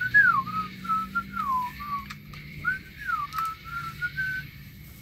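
A person whistling a wandering tune: one clear note gliding up and down in short phrases. It stops shortly before the end.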